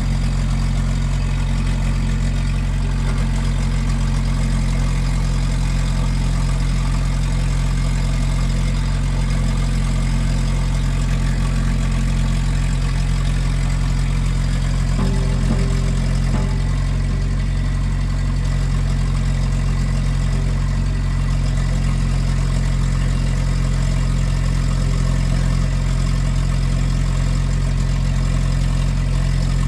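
Diesel engine of a Case CX75SR compact excavator running steadily at a constant speed, with a deep, even hum.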